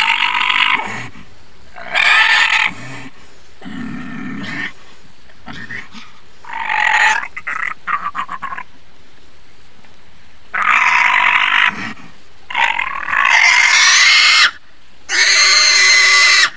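A pig squealing in loud, shrill bursts again and again, the squeals growing longer near the end, with a lower grunt about four seconds in. It is struggling against a rope tied tightly around it.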